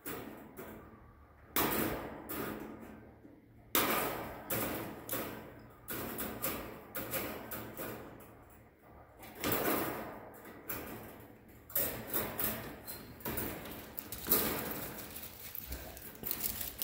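Welded wire fencing rattling and clanking as it is handled and bent by hand: irregular sharp knocks and rattles, one every second or two, with smaller clicks between them.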